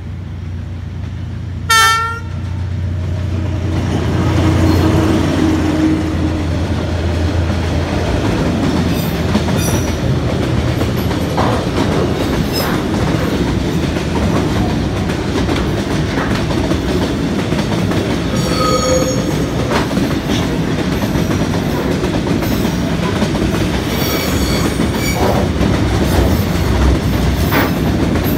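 Freight train hauled by a D19E diesel-electric locomotive passing a level crossing. A short horn blast sounds about two seconds in, then the locomotive's engine rumbles past. Loaded container wagons roll by with a continuous clickety-clack of wheels over rail joints, and brief high squeals sound later on.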